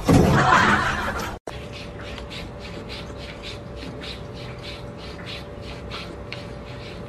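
A cat lapping water from a drinking glass: quick, even licks about three a second, over a faint steady hum. Before it, a short loud rush of noise that cuts off about a second and a half in.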